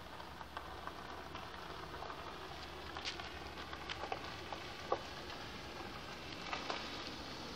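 Tyres of a Mercedes-Benz SUV crackling over a gravel dirt road as it rolls slowly closer, with scattered small pops of stones, most of them from about three to five seconds in and again near the end.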